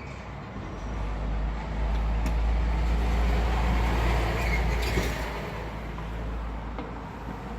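A road vehicle passing by: a low rumble with tyre and engine noise that swells over a couple of seconds, peaks past the middle, then fades.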